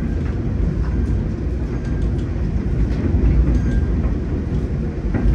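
Inside a moving Budd stainless steel passenger car: the steady low rumble of the train running over the track, with faint scattered clicks.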